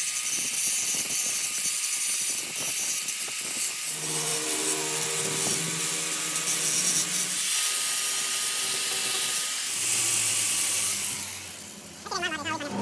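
Workshop tool noise: a steady rasping, scraping hiss of a tool working on a part, with brief humming tones partway through.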